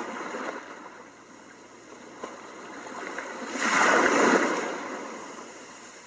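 Ocean-waves sound mode of a Masdio Zenbox white noise machine playing through its small speaker: a surf hiss that swells into one wave cresting about four seconds in, then ebbs away.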